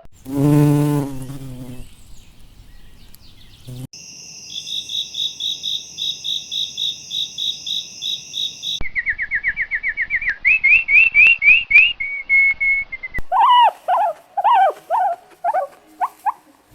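A quick succession of different animal sounds. A short low call opens it, then comes a steady, rhythmic high-pitched chirping, then a run of rising bird chirps and varied bird calls.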